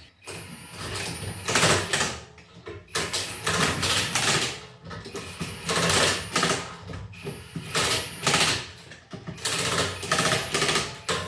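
About six short bursts of rapid mechanical rattling from tool work on a car, each lasting about a second, with brief pauses between.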